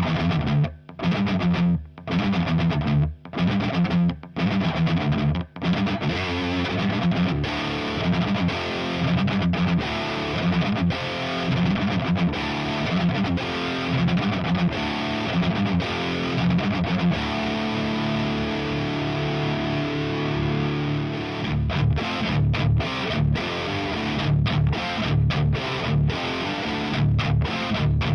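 Distorted electric guitar: a 1980 Gibson Les Paul Custom with stock T-Top humbuckers, played through a Diezel VH4 amplifier head and a Marshall 4x12 cabinet loaded with Celestion Vintage 30 speakers. It opens with short stabbed chords separated by gaps, moves into continuous riffing, and turns to choppy chugging chords about 21 seconds in.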